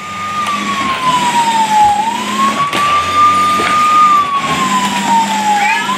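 Electronic toy siren on an RC police SUV, wailing slowly up and down, falling and rising twice, over a steady background whir.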